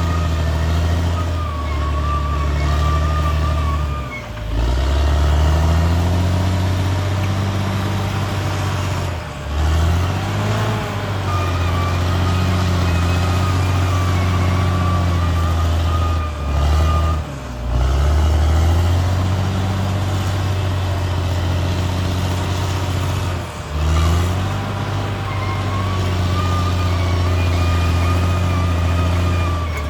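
CAT D6R XL bulldozer's diesel engine running hard under load, its note sagging briefly about five times and picking back up as the blade lugs it down. A high whine runs above the engine.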